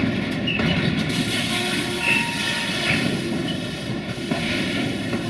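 Freight tank wagons' bogies rolling over a railway switch, steel wheels clacking over the rail joints and frog with a steady rumble. A few brief high squeals come from the wheel flanges against the rails.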